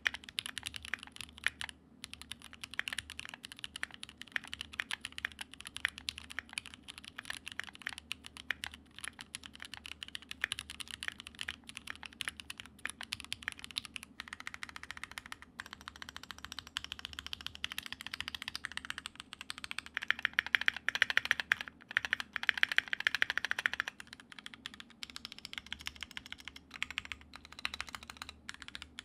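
Stock Keychron Q2 gasket-mounted aluminium mechanical keyboard, with Gateron G Pro Brown switches and double-shot PBT keycaps, typed on continuously as a sound test: a dense stream of key clacks. It gets louder for a few seconds about two-thirds of the way in.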